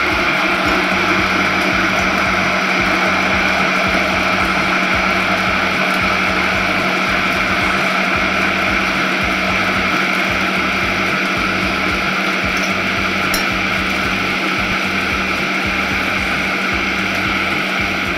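A small electric kitchen grinder's motor running at a steady, even speed, stopping abruptly at the end.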